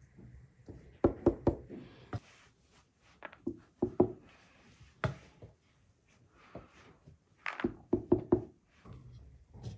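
A slotted metal ladle knocking against a metal colander and a hollowed pumpkin as cooked rice is scooped and tipped into the pumpkin: sharp knocks in small clusters of two to four, several times.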